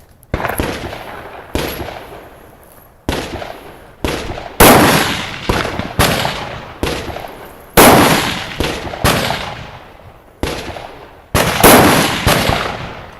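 Rifle gunfire: about a dozen shots at irregular intervals, some overlapping as from more than one shooter, each followed by a long fading echo.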